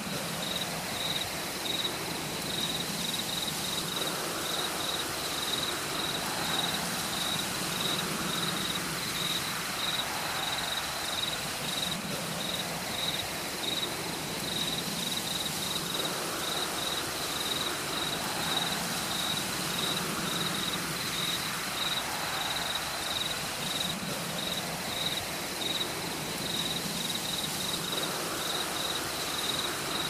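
An insect chirping steadily, a high-pitched chirp repeated a few times a second, over a constant hiss of forest background noise.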